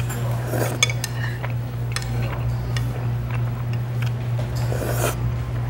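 Eating sounds: chopsticks clicking against a ramen bowl and noodles being slurped, twice louder about half a second in and near the end, over a steady low hum.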